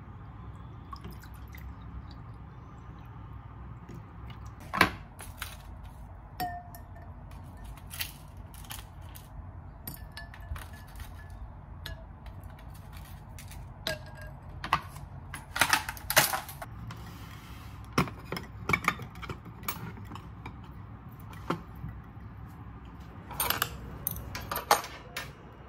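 Dishes and utensils handled in a kitchen: scattered clinks and knocks, busiest in the middle and near the end, over a low steady hum.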